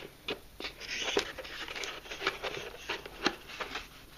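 Packaging being handled: a plastic-wrapped tablet in its tray being pushed back into a cardboard box, with rustling and crinkling and a few sharp clicks and taps.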